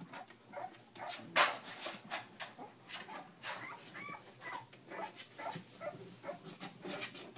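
Three-week-old Miniature Bull Terrier puppies whimpering and squeaking in many short cries, with one louder, sharp sound about a second and a half in.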